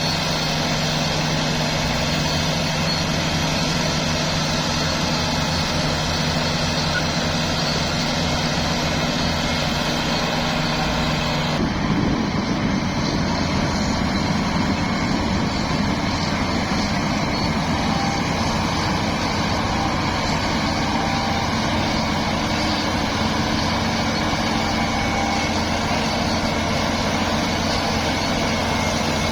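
Heavy diesel machinery engine running steadily, its sound changing abruptly to a different engine note about twelve seconds in.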